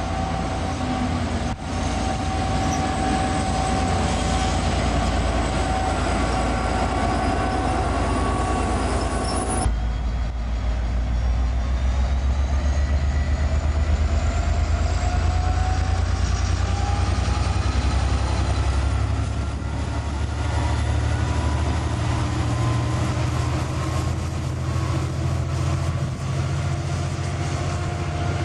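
Diesel locomotives hauling passenger trains past, with a steady engine rumble and wheels on the rails. About ten seconds in the sound cuts abruptly to a closer locomotive, with a heavier low engine rumble and a slowly rising whine.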